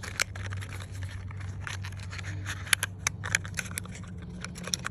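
Packaging of a new NGK spark plug being opened and handled: scattered sharp clicks and crackles, over a steady low hum.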